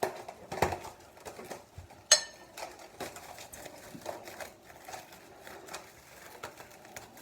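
Cellophane crinkling and rustling as it is worked over the mouth of a glass jar, with irregular small clicks and one sharp clink about two seconds in.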